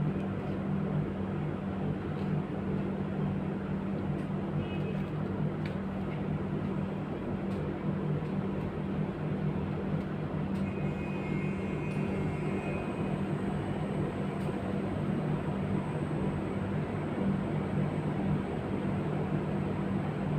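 Steady low machine hum over a background hiss, with a few faint short high tones part-way through.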